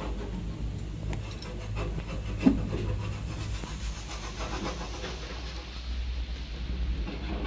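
Hand work on engine parts: metal rubbing and scraping with scattered light clicks and one sharp knock about two and a half seconds in, over a steady low hum.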